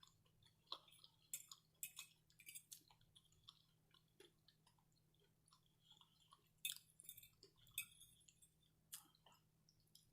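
Close-miked chewing of food in the mouth: faint soft wet clicks and smacks at irregular intervals, a few louder ones scattered through.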